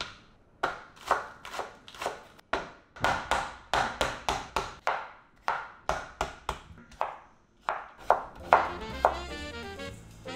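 Knife chopping vegetables on a cutting board: a steady run of sharp chops, about two to three a second. Background music with sustained tones comes in near the end.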